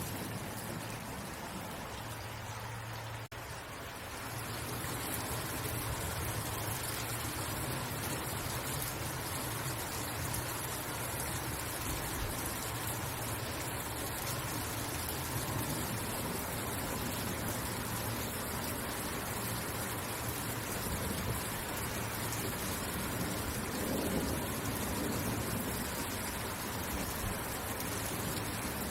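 Steady rain falling, an even hiss of many drops. A little over three seconds in the sound drops out for an instant before the rain carries on.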